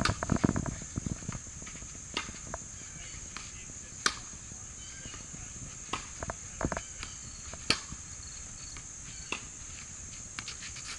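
Sharp pops of a tennis ball being struck and bouncing on a hard court, irregular, every second or two, over a steady high chirring of insects.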